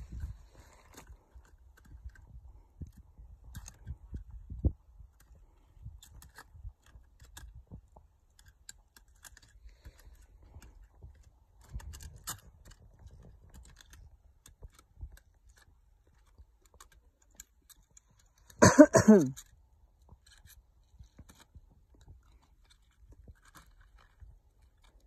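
Boots crunching and scraping on snow and rock, with scattered small clicks of climbing gear, during a descent on a fixed rope. About three quarters of the way through comes one short, loud vocal call.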